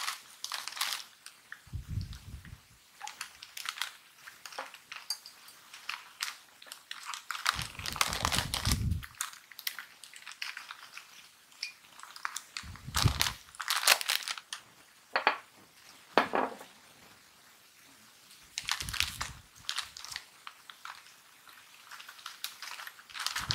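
Foil snack-chip bag crinkling and rustling as it is handled and the chips are shaken out into a glass container, in short irregular crackles. A few dull low thumps come in between, about four times.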